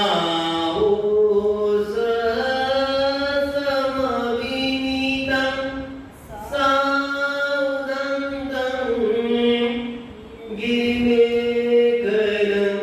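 A man chanting Buddhist verses in Pali into a microphone, a single voice holding long, slowly moving notes in three phrases, with short breaths about six and ten seconds in.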